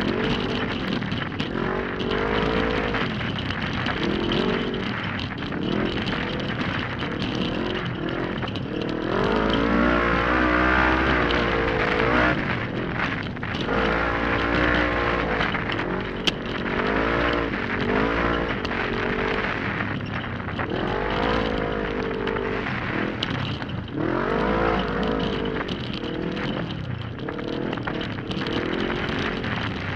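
Engine of a 1000 cc-class racing UTV at full race pace, revving up and dropping back again and again as it accelerates and slows through the trail's turns, over a constant rattle of the machine bouncing across rough dirt. One sharp knock about halfway through.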